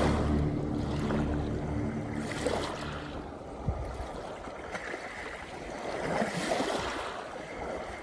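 Small waves washing onto a shore, surging and drawing back every few seconds. The low notes of the background music fade out in the first couple of seconds.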